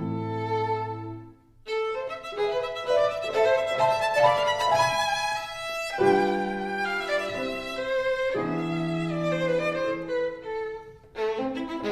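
Background music: a melody played on violin over lower sustained notes, pausing briefly about a second and a half in and again near the end.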